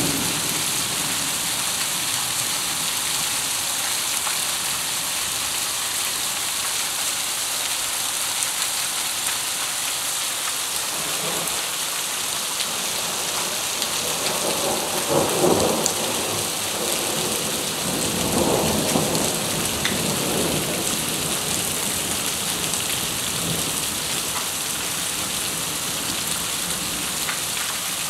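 Heavy rain falling steadily on paving and standing water in a summer thunderstorm, with thunder rumbling a few times in the middle stretch, loudest about halfway through.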